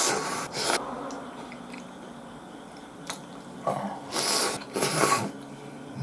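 Cold hiyashi chuka noodles being slurped in through the lips: two short slurps at the start, then two longer ones about four to five seconds in.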